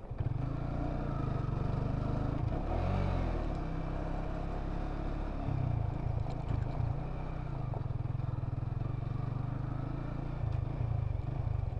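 Yamaha New Vixion Lightning's single-cylinder 150 cc four-stroke engine running under way, heard from the rider's seat. Its pitch rises and falls briefly about three seconds in and changes again around six to seven seconds.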